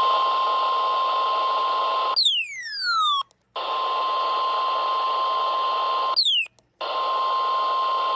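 NOAA Weather Radio's 1050 Hz warning alarm tone: a steady single tone over radio static. It is broken twice, about two seconds in and again about six seconds in, by a falling whistle-like sweep and a brief cut to silence.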